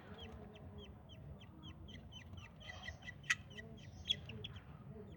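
Budgerigars chirping: a quick, steady run of short high chirps, several a second, with two sharper, louder calls about three and four seconds in.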